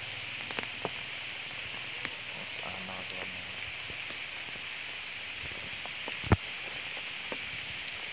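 Light rain falling steadily as a constant hiss, with scattered small drip-like clicks and one sharper click about six seconds in.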